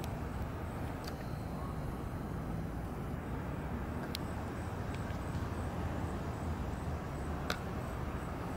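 Steady low outdoor background rumble with a few small clicks, the sharpest near the end.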